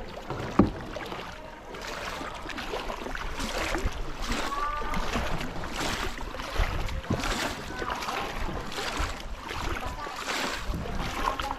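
Kayak paddles dipping and splashing in the water, stroke after stroke, with a sharp knock about half a second in.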